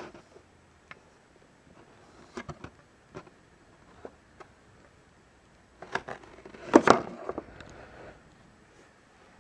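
Clear plastic bag crinkling and rustling as a plastic figure is handled in it, with scattered light clicks and taps. The crinkling is loudest in a short burst about six to seven seconds in.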